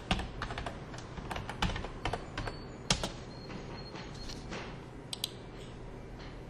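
Typing on a computer keyboard: a run of key clicks over about three seconds, the last one louder, then two quick mouse clicks about five seconds in.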